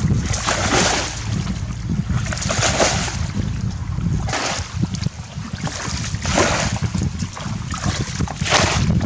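Water splashing in a rhythm of one surge about every two seconds, over a steady low rumble of wind on the microphone.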